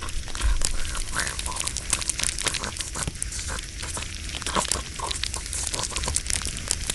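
Campfire crackling steadily: dense, irregular pops and snaps over a low rumble.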